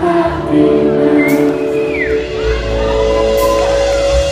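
Live rock band playing in a concert hall: long held notes from electric guitar and keyboard over a steady low bass.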